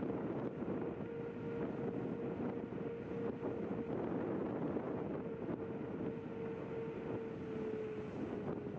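Zero 10x electric scooter riding along a rough asphalt path: wind buffeting the microphone over tyre rumble, with the hub motor's steady whine, which dips slightly in pitch near the end.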